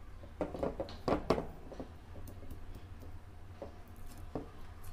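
Hands peeling and pressing double-sided tape onto a small part, making short rustles and clicks that bunch up in the first second and a half, the loudest about a second in, then a few faint clicks, over a low steady hum.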